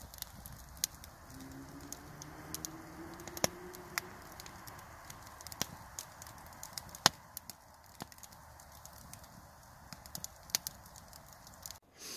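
Wood campfire crackling, with irregular sharp pops over a soft steady hiss. A faint whistling tone rises slightly between about one and four seconds in.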